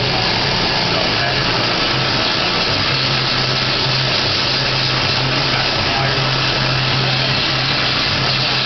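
Waterjet cutting machine running: a loud, steady hiss of the high-pressure jet cutting a metal plate, with a steady low hum beneath it.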